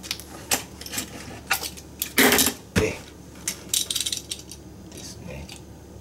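Small plastic parts of a refrigerator drawer lock being handled, giving scattered light clicks and taps. There is a louder rustle a little over two seconds in and a quick run of clicks near four seconds.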